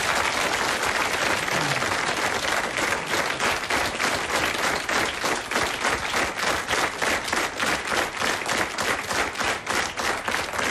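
Studio audience applauding. The clapping falls into a steady rhythmic unison clap of about three claps a second after the first few seconds.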